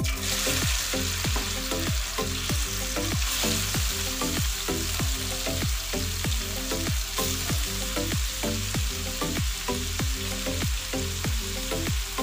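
Marinated pork tapa sizzling in hot oil in a frying pan, the sizzle starting as the meat is dropped in and then holding steady. Background music with a steady beat plays underneath.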